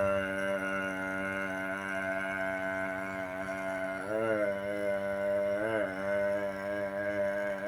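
A long, low droning note held steady in pitch, wavering briefly about four seconds in and again near six seconds.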